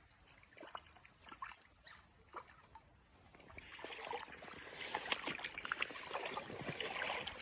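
Stream water trickling and splashing, with scattered small splashes and clicks; it grows clearly louder about three and a half seconds in.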